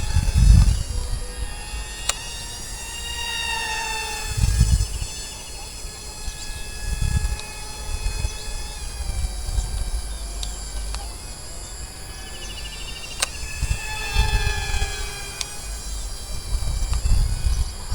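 Whine of a remote-controlled model jet's motor, several high tones sliding up and down in pitch, with bursts of low rumble every few seconds.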